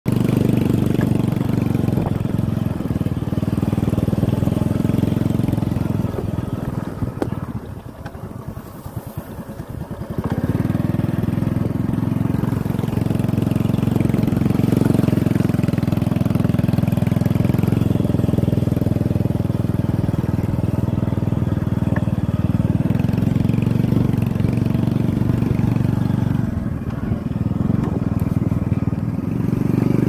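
Motorcycle engine running steadily while riding, easing off for about three seconds roughly a quarter of the way in and dipping again briefly near the end.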